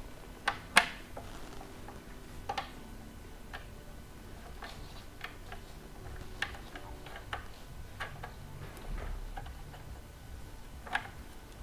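Scattered small clicks and taps of hand tools and bike parts being handled while assembling an e-bike, irregular rather than rhythmic, the two loudest in the first second.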